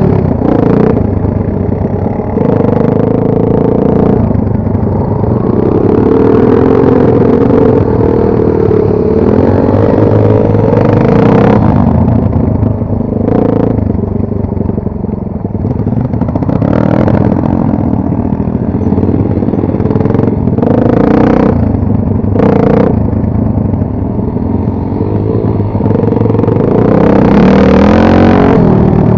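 Enduro motorcycle engine running under way off-road, its pitch rising and falling with the throttle, with a few brief rattling knocks from the bike on rough ground.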